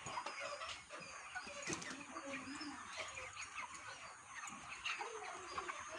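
A large flock of chickens in a poultry shed, many overlapping clucks and chirps.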